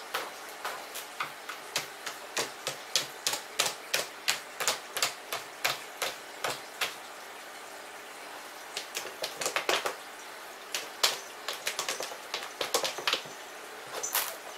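A cat scratching the litter inside a top-entry plastic litter box to cover up after using it: a run of short, crisp scratches about three a second, a pause near the middle, then more uneven scratching.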